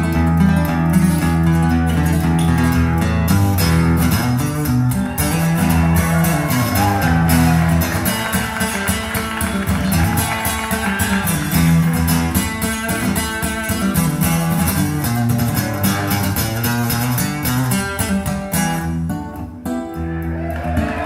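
Music played through Canton Ergo 90 DC floorstanding loudspeakers: an instrumental passage with plucked guitar over bass and a steady beat. The mix thins briefly near the end.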